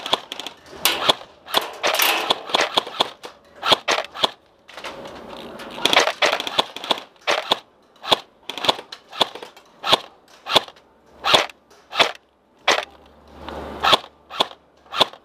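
Airsoft guns firing, an irregular mix of single shots and short rapid bursts, each shot a sharp snap.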